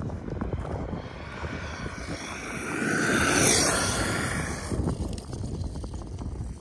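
Arrma Kraton 6S RC truck's brushless electric motor whining as the truck speeds past, swelling to a peak about three and a half seconds in and fading as it drives away.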